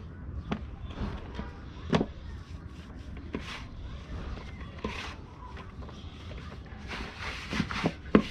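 Hands kneading naan dough in a large metal tray: irregular soft thumps and squishing as the dough is pressed and pushed down, the loudest thumps about two seconds in and just before the end.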